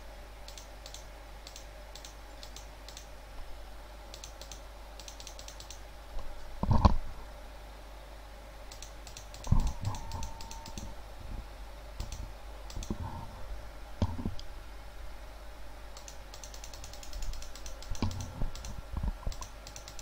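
Computer keyboard typing in short bursts of clicky keystrokes, with a few dull low thumps between them; the loudest thump comes about seven seconds in.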